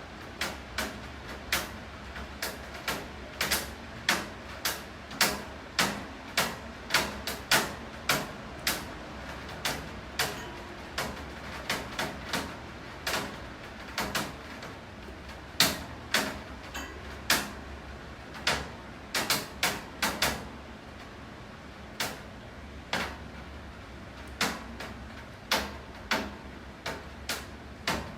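Raindrops dripping onto a hard surface: sharp, irregular taps about one or two a second, over a steady low hiss and hum.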